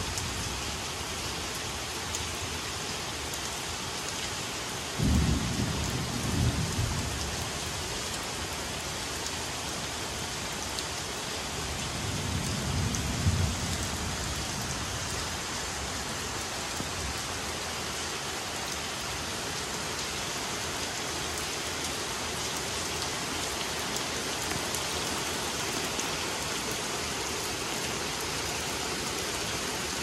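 Steady rain falling on trees and a wet deck, with two low rumbles of thunder: one starting suddenly about five seconds in, and a softer one about twelve seconds in.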